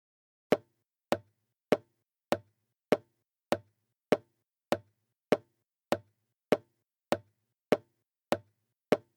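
Footsteps of hard-soled shoes walking at a steady, even pace: a sharp click about every 0.6 seconds, starting about half a second in.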